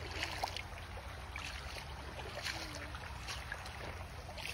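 Shallow creek trickling over rocks, with scattered short crunches and clicks of footsteps on loose river stones.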